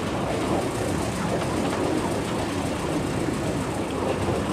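Deutz OMZ 117 narrow-gauge diesel locomotive running steadily as it hauls a train of steel skip wagons along the track.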